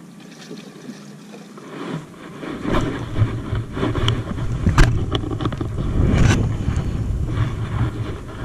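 Low rumbling wind noise on the microphone that sets in about two and a half seconds in, with several sharp knocks on a boat, the loudest about halfway through.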